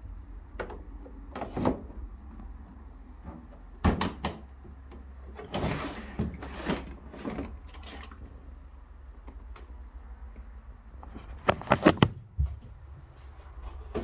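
Plastic clicks and knocks from handling a condenser tumble dryer's blue lint filter and water-container drawer, ending with a quick cluster of sharp clicks about eleven and a half seconds in.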